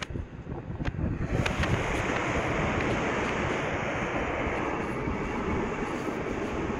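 Wind buffeting the microphone over the rush of surf breaking on the shore, growing about a second in and then holding steady.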